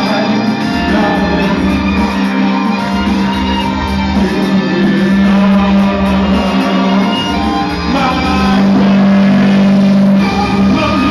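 Live gothic rock band: a singer over violin and backing music with a steady low beat. A long note is held about two-thirds of the way through.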